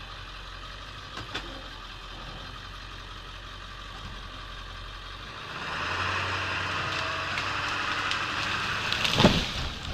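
Truck engine running steadily, getting louder about halfway through as a rougher, crackling noise builds. A single loud crash comes near the end.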